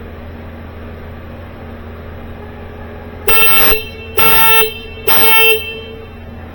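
2013 Kia Optima's alarm horn sounding three short blasts in a row, about a second apart, set off by the panic button. It now works with its missing burglar-alarm horn relay put back.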